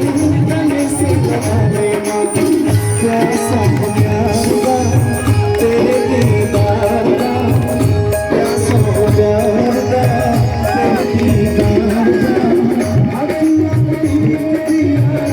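Live Indian devotional band music: hand drums keep a steady beat under sustained melody lines from the accompanying instruments, with no singing.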